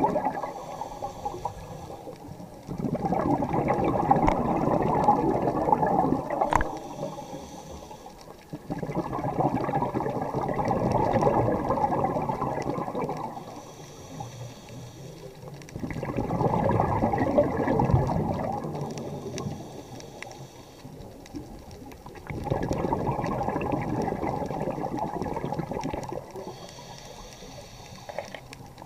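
Scuba diver breathing through a regulator underwater: a faint hiss on each inhale, then a longer, louder rush of exhaled bubbles. Four breaths, one about every six to seven seconds.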